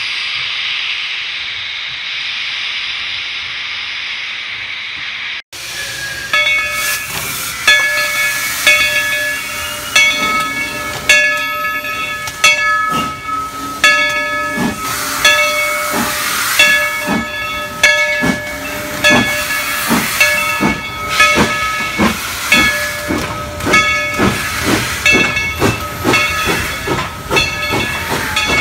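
For about five seconds, a steady hiss of steam from Canadian Pacific 2816, a 4-6-4 Hudson steam locomotive. After an abrupt cut, a different steam locomotive, Dollywood Express No. 70, is heard chuffing, its exhaust beats getting quicker as it gathers speed, while its steam whistle sounds several notes at once, again and again.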